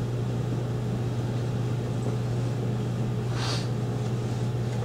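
Steady low hum of a room's electrical or ventilation noise, with one brief breathy, hissy noise about three and a half seconds in.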